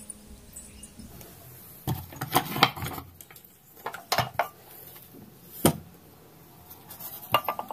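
Wooden window shutters being unfastened and pushed open by hand: several sharp knocks and clicks of wood, spread over a few seconds.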